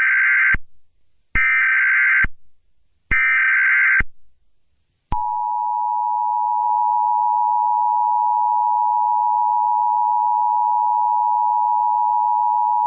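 Emergency Alert System broadcast tones: three short, harsh bursts of SAME header data, then from about five seconds in the steady two-tone EAS attention signal, held without a break.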